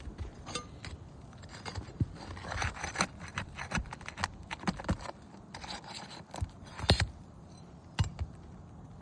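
Hand tools working loose roof shingles: scraping, with many sharp metal clicks and taps, and two louder knocks late on.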